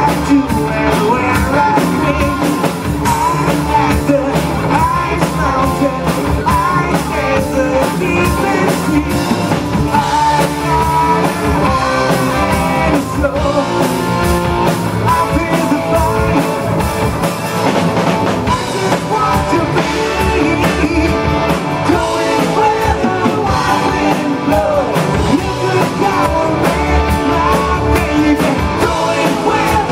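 Live rock band playing a song: electric guitars, bass, keyboard and drum kit, loud and steady throughout.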